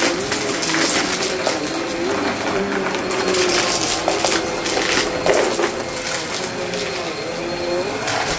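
Vacmaster upright vacuum cleaner running over carpet. Its motor hum wavers in pitch with each push and pull stroke, and small debris bits crackle and click as they are sucked up.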